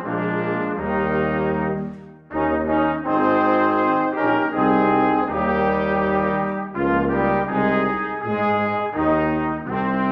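Brass ensemble music: held chords in short phrases, with a brief pause about two seconds in.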